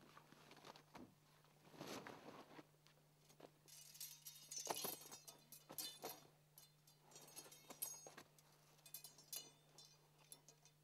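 Faint clinks and rattles of tent poles being handled and fitted together, with rustles of tent fabric, over a steady low hum.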